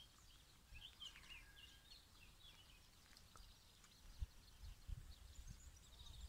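Near-quiet outdoor ambience with faint birds chirping now and then, and a few soft low thumps in the second half.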